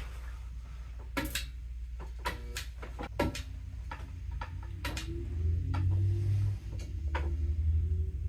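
A string of sharp clicks and knocks, a few of them ringing briefly, over a low hum. The hum grows louder and steadier about five seconds in.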